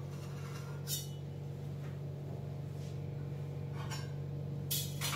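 Brief clinks of a steel knife against a stainless steel pot, about a second in, then a few more near the end, over a steady low hum.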